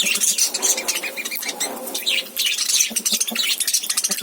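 Small pet parrots (love birds) chattering, a rapid unbroken stream of short high chirps from several birds at once.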